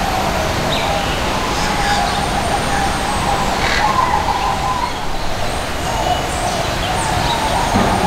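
Steady rushing background noise with a few faint chirps and short falling whistles of small birds scattered through it.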